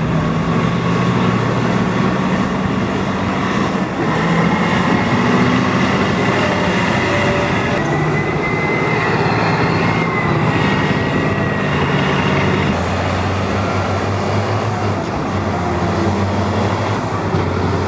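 Heavy earthmoving machine running, its diesel engine working under load, with a high squeal from about 8 to 11 seconds. The engine note changes abruptly about 13 seconds in.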